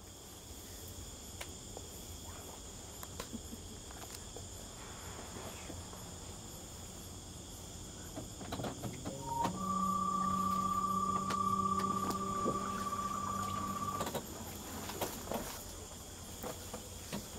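Night insects chirring steadily in high, even tones, with scattered small clicks and knocks. About halfway through, a louder steady hum with a higher whine above it comes in for about four seconds and then stops.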